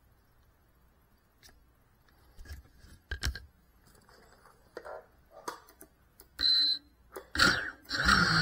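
FPV drone hitting the floor with a sharp crash about three seconds in, followed by scattered smaller knocks and clatter as it settles. A short high beep comes about two thirds of the way through, and near the end there is a louder burst of rattling noise with a falling tone.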